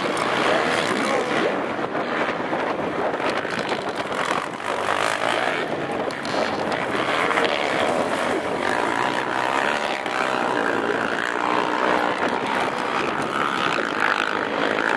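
Racing quad (ATV) engines running hard on a motocross track, a loud continuous drone whose pitch rises and falls as the riders rev and ease off.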